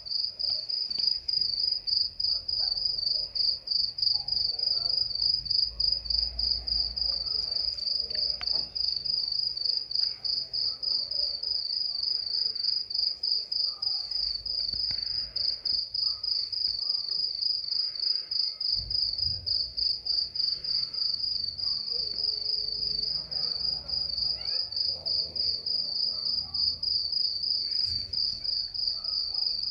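A cricket chirping: one high note pulsed at an even, rapid rate, repeating without a break.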